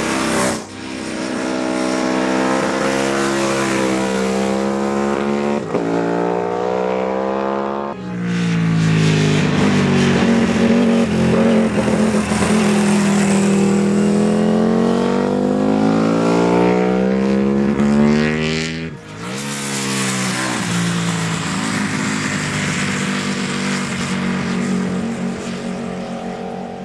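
Britten V1000's 60-degree V-twin racing engine at full song on track. Its note climbs in pitch again and again as it accelerates and shifts up, then dips and swells in a long sweep as it slows for a corner and pulls away. Near the end it fades as the bike moves off.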